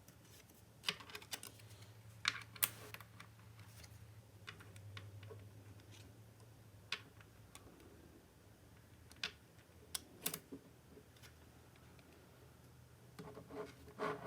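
Small magnetic balls clicking sharply against each other as they are placed and snapped together, in irregular single clicks and short clusters. A faint low hum lies underneath.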